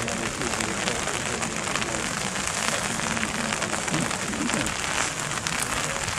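Steady rain falling, a constant hiss with many sharp individual drop ticks close by.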